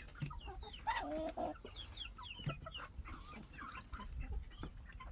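Chickens clucking, with several short, overlapping calls from the flock, some sliding in pitch; a louder call about a second in.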